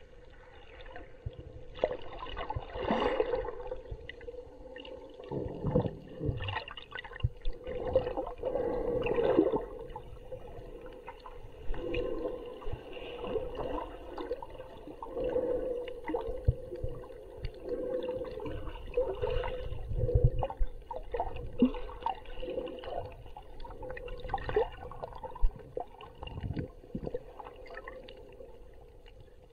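Muffled underwater sloshing and gurgling of water, heard through a camera held just below the surface, with irregular splashes and bubbles and a steady hum underneath.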